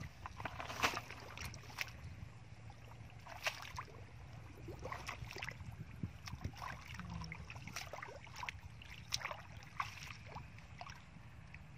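Shallow muddy water sloshing and splashing in small, irregular bursts as hands and bare feet move through it, over a low steady rumble.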